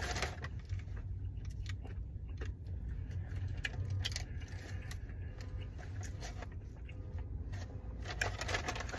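Brown paper takeout bag rustling and crinkling as hands rummage in it and unwrap small packets: a run of irregular crinkles and clicks. A steady low rumble sits underneath.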